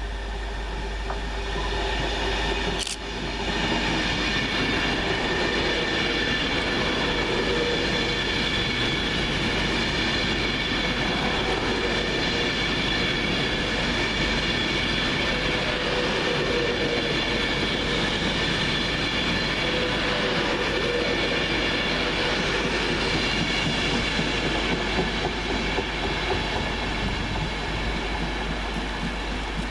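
Class 390 Pendolino electric train running through the station, a steady rush of wheels on rail with a faint high whine held throughout. A sharp click about three seconds in.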